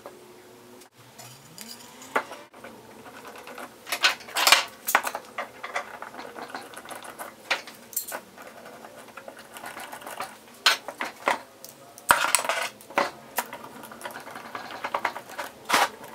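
Metal F-style bar clamps clattering and clicking as they are set onto a glued-up board stack and tightened, in scattered clusters of sharp metallic clinks. The loudest clusters come about four seconds in and about twelve seconds in.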